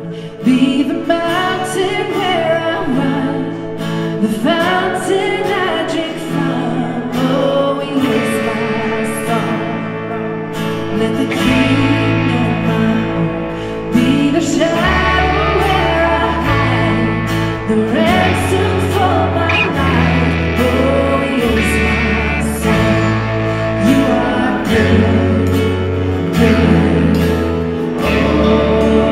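Live worship band playing a pop-rock worship song: a woman singing the melody over acoustic guitar and piano. Low bass notes join about eleven seconds in.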